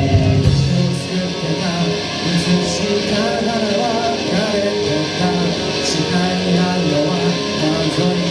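A rock band playing live: guitars over bass and drums, with a voice singing a wavering melody from about three seconds in. It is heavier in the low end for the first second, then thins out.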